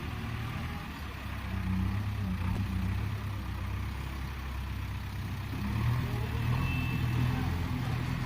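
Diesel engine of a JCB 3DX backhoe loader running steadily, getting a little louder about six seconds in.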